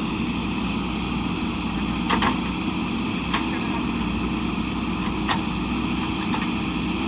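Backhoe loader's diesel engine running steadily, with a few sharp knocks over its hum, about a second or two apart.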